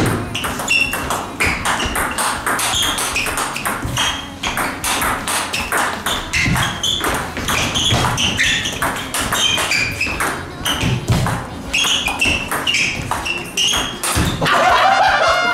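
Table tennis rally: a long run of quick sharp clicks as the plastic ball is struck by the rubber paddles and bounces on the table, many with a short high ping.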